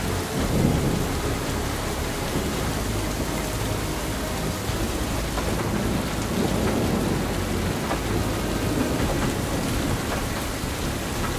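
Heavy rain pouring down during a thunderstorm, with rolls of thunder rumbling: one swell about half a second in and another around six seconds in.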